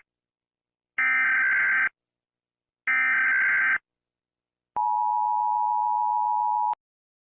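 Two buzzy Emergency Alert System SAME digital data bursts, each just under a second long and about a second apart, then a steady single tone near 1 kHz held for about two seconds that cuts off sharply.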